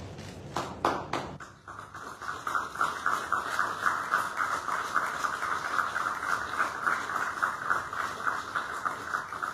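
Applause from a group of people clapping, building up over the first two seconds and then carrying on steadily.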